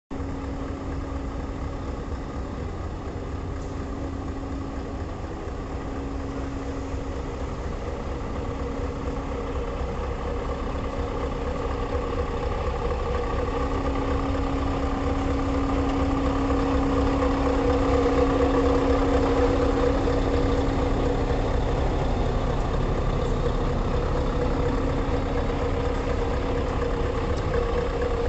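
Scania S730's 16.4-litre V8 diesel idling with a steady low rumble, growing somewhat louder through the middle.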